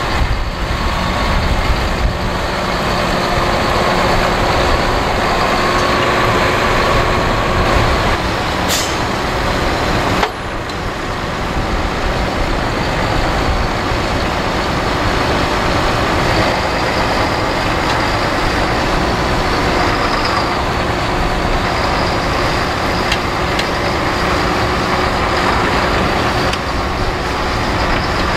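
Valtra tractor's diesel engine running steadily under load while it pulls a five-furrow reversible plough through stubble.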